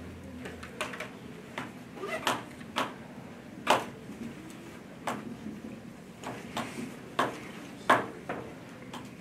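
A dry-erase marker tapping and scraping on a whiteboard during writing: a dozen or more short, irregular clicks and taps against a faint room hum.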